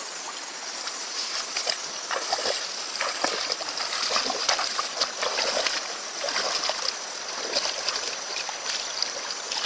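Water splashing and sloshing in many short, irregular strokes, with a faint steady high hiss behind it.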